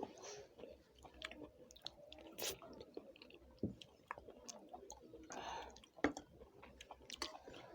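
Quiet chewing and mouth sounds of people eating a meal, with a few sharp clicks scattered through.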